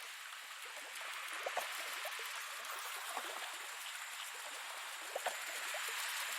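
Rain falling: a steady hiss with scattered small drip and splash ticks.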